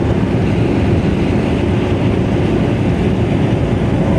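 Steady engine and road noise of a Daewoo Matiz driving at highway speed, heard from inside the car.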